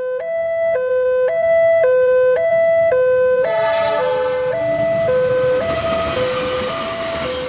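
Electronic two-tone level-crossing alarm sounding from the signal's loudspeaker, switching between a high and a low tone about twice a second. From about three and a half seconds in, the rumble and rail noise of an approaching KAI diesel locomotive rises beneath it.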